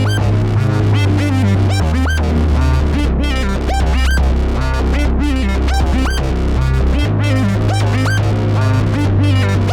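Sequenced electronic jam on Arturia MiniBrute 2S and Korg Minilogue xd analogue synthesizers with Maschine MK3 drums. A held synth bass line shifts note every one to two seconds under busy, short synth notes that slide in pitch, over a steady drum pattern.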